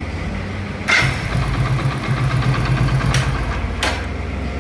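Hero Splendor Plus single-cylinder engine running with an even pulse; about a second in the electric starter is pressed and a sudden loud, harsh noise rises over the engine, with two sharp clicks later on. It is the abnormal self-starter sound that is the bike's fault.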